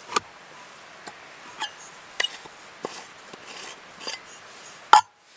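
Light metallic clinks and taps as the screw cap is worked off a small brass alcohol-stove burner and handled. One sharper, louder clink comes near the end.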